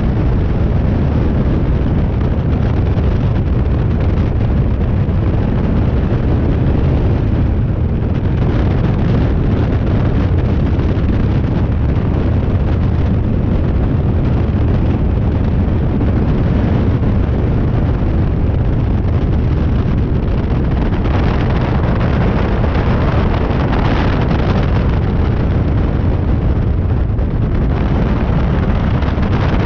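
A high-wing light aircraft's piston engine drones steadily in flight, heard from a camera mounted outside on the airframe, with heavy wind rush buffeting the microphone. The wind rush grows stronger for several seconds in the last third.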